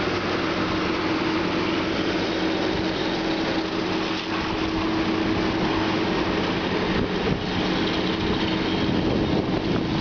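Pickup truck's engine running steadily at a constant pitch under load as the truck works through deep mud.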